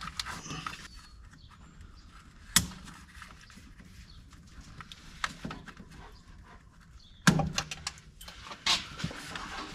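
Scattered clicks and knocks of a screwdriver working at the plastic clips on a fuel filter's line connections, with a quick cluster of knocks about seven seconds in.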